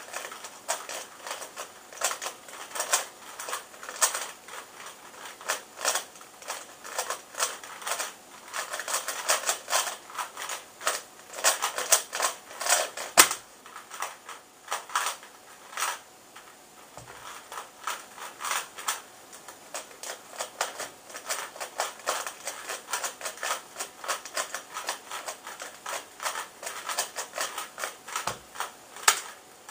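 Plastic 3x3 Rubik's cube being turned fast during a speedsolve: rapid, irregular clacking of the layers. A single loud knock comes about 13 seconds in as the solve ends, then the clicking of further turns picks up again.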